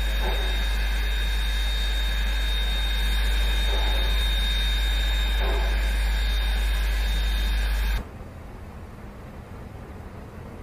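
Steady electrical hum with a high-pitched whine over it. Both cut off abruptly about eight seconds in, leaving a much quieter, even hiss.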